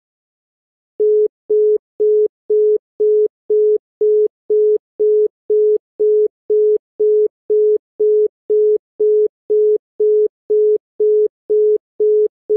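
Mexican telephone busy/reorder (congestion) tone: a single steady 425 Hz tone beeping on and off evenly about twice a second, starting about a second in. It signals that the called line is busy or the network is congested.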